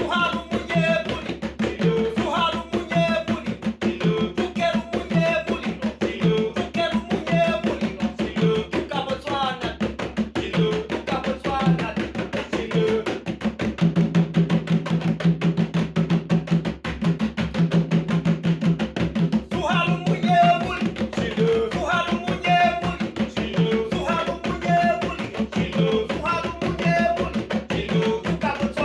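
Music with a fast, steady beat and a melody over it.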